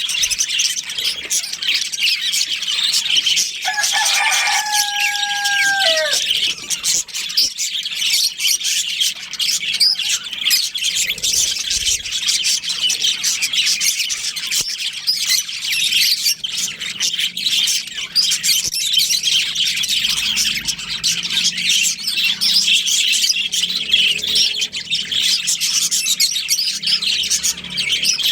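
A colony of budgerigars chirping and chattering continuously. About four seconds in, a lower, held call rises above the chatter for roughly two seconds and falls away at its end.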